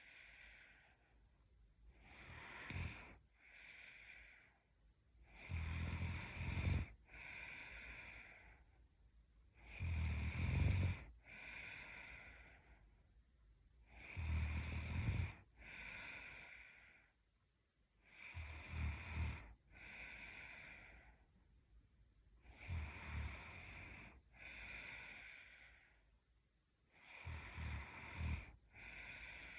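A sleeping young woman snoring in a steady rhythm, about seven snores, one every four seconds. Each snore has a low rattle and is followed by a softer breath.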